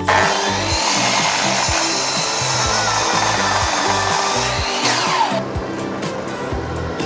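A power tool working wood runs with a loud, even hiss over background music with a steady beat; the tool noise stops about four and a half seconds in, leaving the music.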